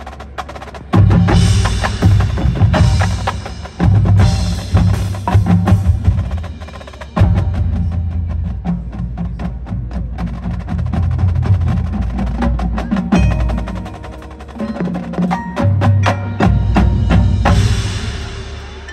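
High school marching band playing its field show with the percussion to the fore: sharp drum and mallet-percussion hits over the full band. Several loud sudden full-band entrances come early on; the band eases off briefly about three-quarters through, then builds again.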